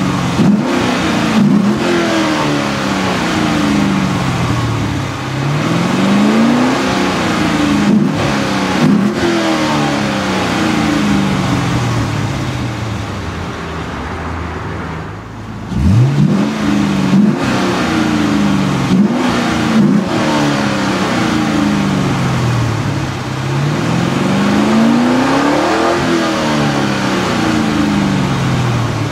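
2004 Cadillac CTS-V's LS6 V8 revved while standing still, heard from behind at its dual exhaust: the revs jump up sharply and then fall slowly back. It drops low briefly just before the middle, then another sharp rev comes about halfway and one more near the end.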